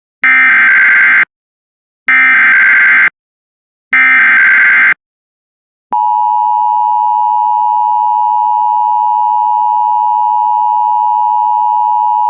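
Emergency Alert System SAME header: three one-second bursts of shrill, buzzing digital data tones, evenly spaced. About a second after the last burst, the steady EAS two-tone attention signal begins and holds. Together they announce a severe thunderstorm warning.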